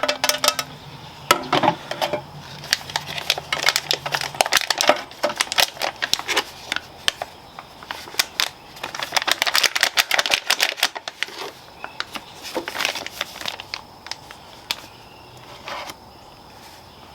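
Unpopped popcorn kernels rattling and clicking as they are shaken out of an opened microwave popcorn bag into an air fryer basket. The clicks come thick and fast for the first ten seconds or so, then thin out to scattered ticks.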